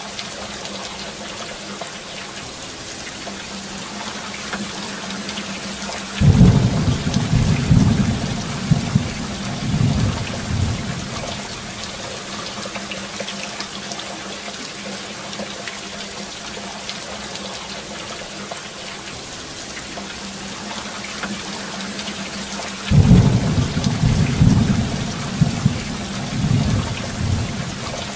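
Steady heavy rain, with two rolls of thunder that start suddenly, the first about six seconds in and the second about twenty-three seconds in, each rumbling on for about five seconds in several loud peaks.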